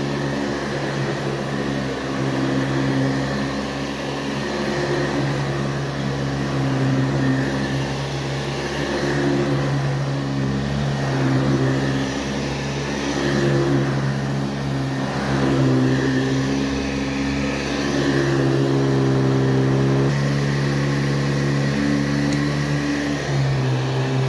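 A 1977 Hoover/JCPenney Boxtop Convertible upright vacuum cleaner running steadily, its motor giving a low, even hum with shifting overtones.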